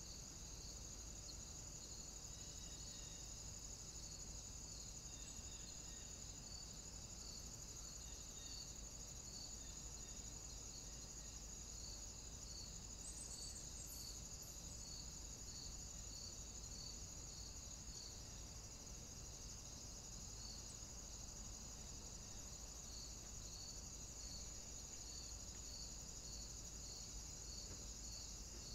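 Steady high-pitched insect stridulation, like crickets, with a regular chirp about once a second over a low, even background hiss.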